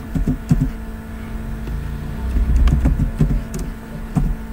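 A low rumble that swells and fades twice, with a steady low hum and a few sharp clicks of computer keyboard keys.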